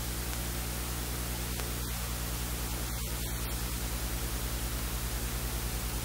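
Steady hiss with a low electrical hum beneath it: recording noise, with no other sound standing out.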